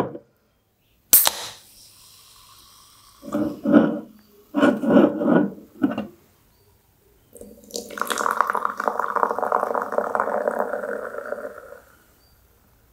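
A can of Sun Crush Bitter Lemon soda is cracked open about a second in, with a sharp pop and a brief hiss. Later the carbonated drink is poured into a glass for about four seconds, gurgling and fizzing as the glass fills.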